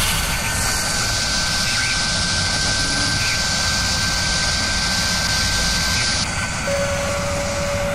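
Machine sound effect of a high-speed drilling spindle running and cutting: a steady rushing roar with a thin high whine held throughout, the upper hiss dropping away about six seconds in.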